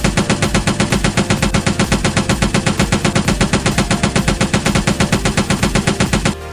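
Toy machine gun's electronic firing sound, a rapid, even rattle of shots at about eight a second that stops briefly near the end and starts again.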